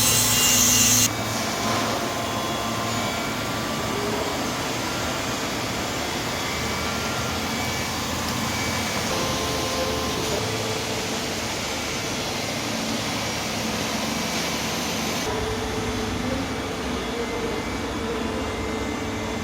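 Studer S36 CNC grinding machine running: a steady machine hiss and hum. A louder, higher hiss cuts off about a second in, and the sound shifts slightly about fifteen seconds in.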